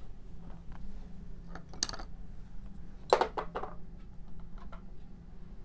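A few light clicks and clinks of small hard painting tools being handled, with a short cluster of them about three seconds in, over a steady low hum.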